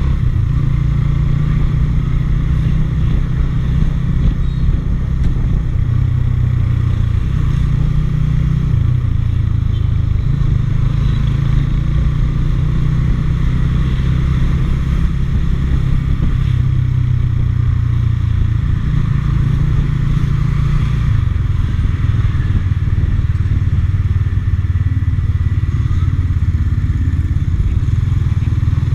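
Motorcycle running under way on the road, a loud steady engine and road noise whose low note shifts a few times.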